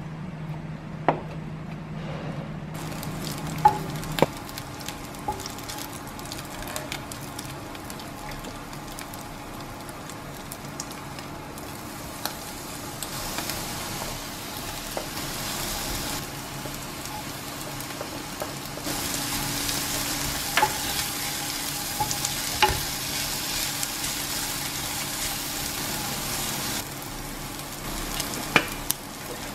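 A few knife taps on a cutting board, then chopped dried mushrooms, Chinese sausage, dried shrimp and scallops sizzling in a frying pan as they are stir-fried, with occasional sharp knocks against the pan. The sizzle grows louder about 13 seconds in and again around 19 seconds in.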